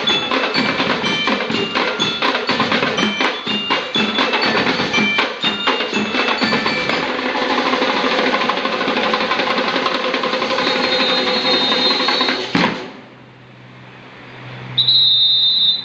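School marching band percussion, with snare drums, bass drums and bell lyres: bright bell-lyre notes over quick drum strokes, then a long drum roll that cuts off sharply about 13 seconds in. A short whistle blast sounds near the end.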